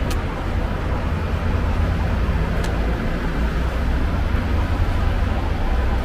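Town street ambience: a steady low rumble with a faint hiss above it.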